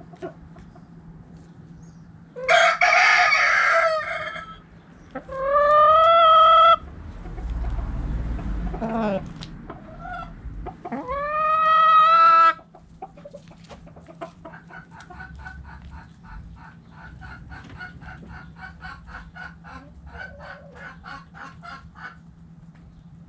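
Rooster crowing several times in a row, loud, drawn-out calls with a held final note, followed by hens clucking in a steady run of short notes, about three a second, for most of the second half.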